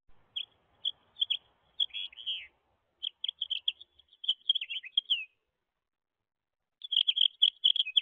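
Small songbirds chirping in three bursts of quick, high chirps, some of the notes sliding down in pitch.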